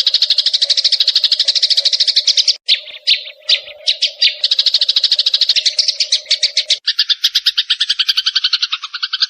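Sparrows chirping in a fast, even stream of rapid chirps, broken by a few separate chirps about three seconds in. Near seven seconds a faint steady low hum beneath stops and the chirping switches to a lower-pitched rapid run.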